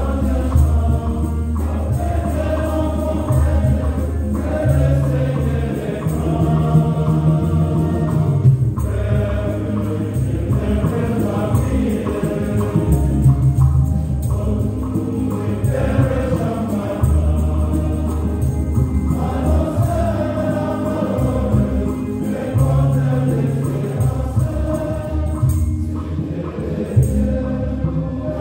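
Choir singing the entrance hymn of a Catholic Mass, over low sustained accompaniment notes that change every few seconds.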